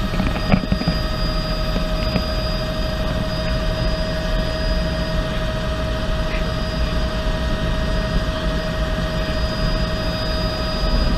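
Cabin noise of a Bell 206B3 JetRanger helicopter in flight: the steady whine of its Allison 250 turbine and drivetrain, with several held tones, over the constant low rumble of the rotor.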